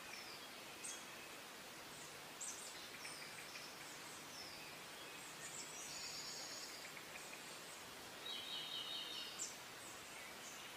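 Songbirds chirping and trilling in short high calls over a faint, steady outdoor hiss.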